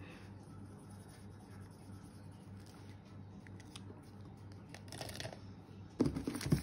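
Felt-tip marker faintly scratching over paper as boxes on a savings tracker are coloured in, over a low steady hum. About six seconds in, a short burst of louder rustling and knocks as a stack of plastic banknotes is picked up.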